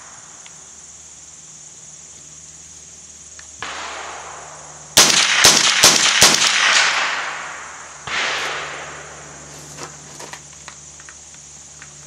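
Four shots from a Smith & Wesson M&P 15-22 semi-automatic .22 LR rifle firing CCI Stinger rounds in quick succession, a little under half a second apart, about five seconds in. The rifle is cycling cleanly through the string, with no failure to eject.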